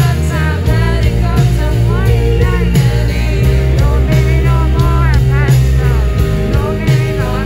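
A live rock band playing: a woman sings lead over electric guitars and drums.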